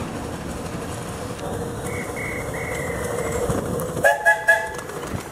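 Miniature steam train running past, then the locomotive's whistle gives three short toots about four seconds in.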